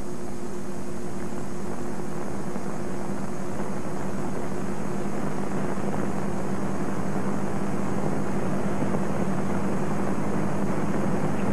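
Steady hiss with a low electrical hum and no other sound: the background noise of an old film soundtrack.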